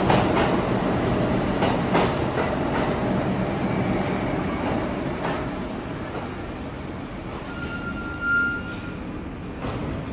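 A New York City subway train moving away and fading, its wheels clicking over rail joints. A thin high wheel squeal sets in about halfway through, with a brief louder squeal near the end.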